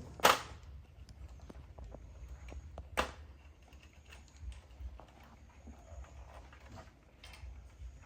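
Objects being handled on a work surface during amplifier repair: scattered light clicks and taps, with two sharper knocks, one just after the start and one about three seconds in, over a low steady hum.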